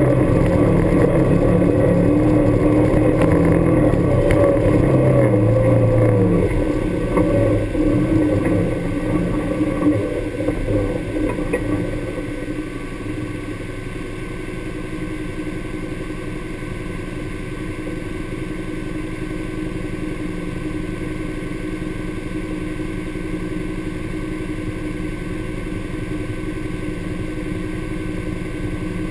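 Honda Pioneer 1000 side-by-side's parallel-twin engine running under way, its pitch rising and falling with the throttle. About twelve seconds in it drops to a steady idle as the vehicle stands still.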